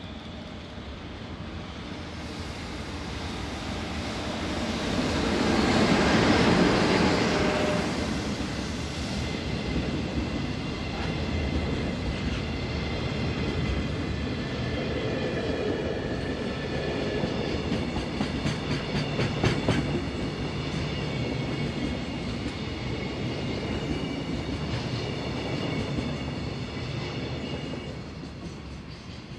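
JR Freight EF66 electric locomotive passing at speed, loudest about six seconds in, followed by a string of freight flat wagons rolling by with wheel clatter and a steady high ringing. The noise fades near the end as the last wagon goes past.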